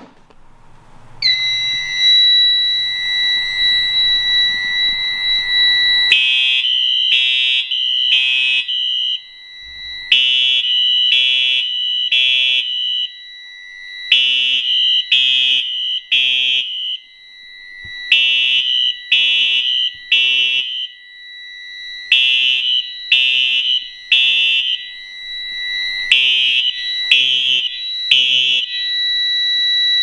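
Fire alarm horns sounding after a Simplex dual-action pull station is pulled. A steady high electronic tone starts about a second in. From about six seconds in, a Simplex 4901-9820 horn and a Wheelock LHSR horn/strobe sound the temporal-three pattern: three blasts, a pause, repeating. Both horns have tape over them to quiet them and are still very loud.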